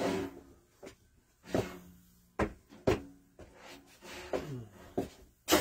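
A few sharp knocks and clunks of objects being handled and set down, about four in all, with the loudest near the end.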